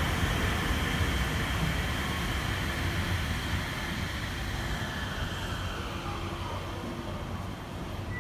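Nippori-Toneri Liner driverless rubber-tyred train pulling into the station and slowing, its running noise easing off while a whine falls steadily in pitch over a few seconds.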